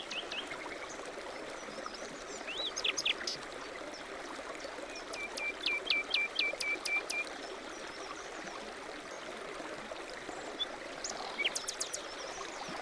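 Steady rush of a stream with birds chirping over it: a few calls, then a run of about eight quick, evenly spaced chirps midway, and more calls near the end.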